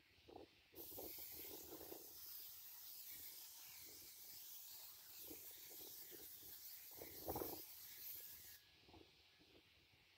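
Compressed-air siphon spray gun hissing steadily as it sprays into a transmission clutch pack. The hiss starts just under a second in and cuts off abruptly after about eight seconds, with a few faint knocks under it.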